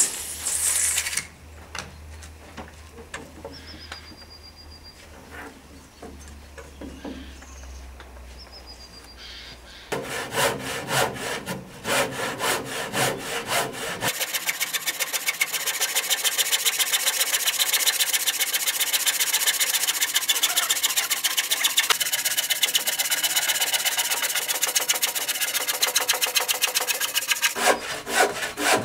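Handsaw cutting across a solid timber beam (about 22.5 × 7.5 cm) in quick, even back-and-forth strokes. The sawing starts about ten seconds in and then keeps a steady rhythm.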